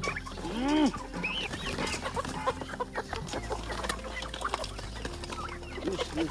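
A flock of Rhode Island Red chickens clucking as they feed on scattered grain. There are many short calls, and one loud rising-and-falling call just under a second in.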